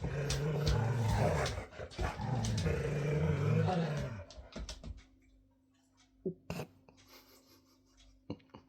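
Dog growling in play: low, rumbling growls in several long stretches over the first four seconds, fading out, followed by a few light knocks.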